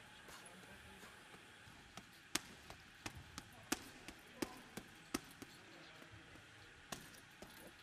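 Boxing gloves striking a heavy punching bag: sharp slaps landing in irregular flurries over quiet room tone.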